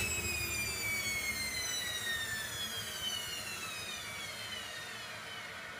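Servis Slimline 308S washing machine's motor running down, a whine with several pitches falling steadily as the drum slows, getting gradually quieter.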